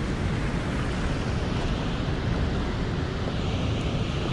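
Steady rush of churning river water pouring off a dam spillway, with wind buffeting the camera microphone.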